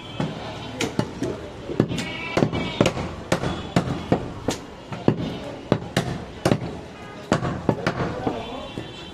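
Heavy butcher's cleaver chopping goat meat on a round wooden log chopping block, a steady run of sharp chops a little under two a second.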